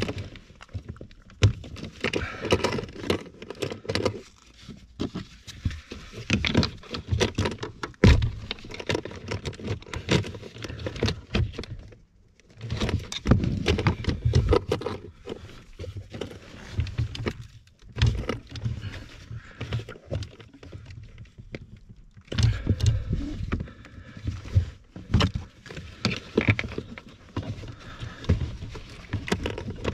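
Hands working a tight-fitting rubber coolant hose onto a heater core pipe under a car dashboard: irregular knocks, clicks, rubbing and rattling, with a few brief pauses.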